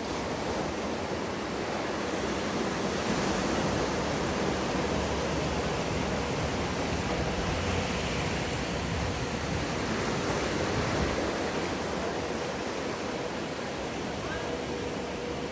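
Machine-made surf in a wave pool: breaking whitewater and rushing water, a steady noisy wash that swells a little in the middle, with a faint steady hum underneath.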